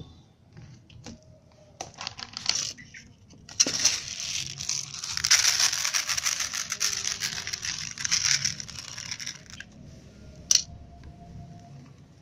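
Dry cat kibble poured onto a plastic tray, the pellets hitting the tray in a dense, fast stream for about six seconds, with a shorter stretch of the same sound earlier. A single sharp knock near the end.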